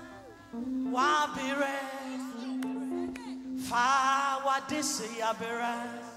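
Live gospel music: a voice singing two sung phrases with wavering pitch over a steady held keyboard chord, with a short break between them.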